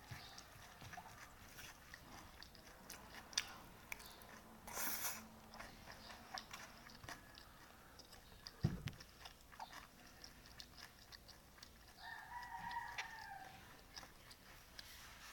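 Quiet eating sounds: chewing and small utensil clicks, with a brief rush of noise about five seconds in and a dull thump a little past halfway. Near the end a rooster crows once in the background, a call lasting over a second.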